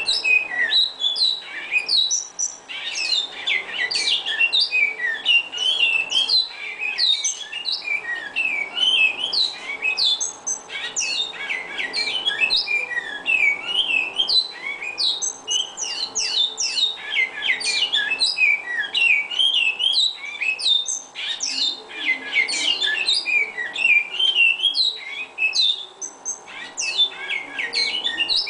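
Caged great-billed seed finches (bicudos) singing, a continuous run of quick whistled notes sweeping up and down in pitch.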